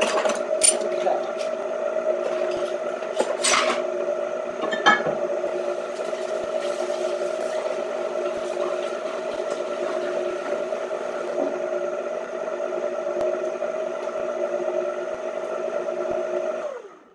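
Aucma 6.5-quart, 660 W tilt-head stand mixer running steadily, its motor humming as the beater works through thick fruit bread batter, with a few clicks in the first five seconds. The hum drops away and stops just before the end as the mixer is switched off.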